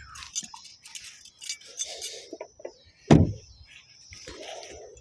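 Scuffing and handling noise as a person climbs out of a Chrysler 200C, then one heavy thump about three seconds in: the car door being shut.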